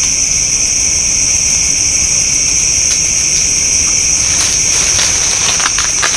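Dense night chorus of crickets and other insects, shrilling steadily in several high bands. In the last two seconds a few short clicks and knocks break in.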